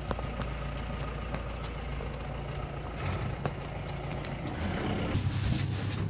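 An engine idling steadily, a low drone.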